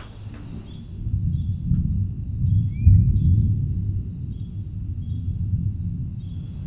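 Outdoor ambience: a low, noisy rumble that swells to its loudest about three seconds in and then eases off, over faint, evenly repeating high chirps.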